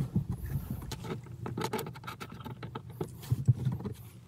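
Scattered light metallic clicks and rattles of small bolt hardware being handled: washers and nylock nuts on the bolts of an arch mounting-foot backing plate.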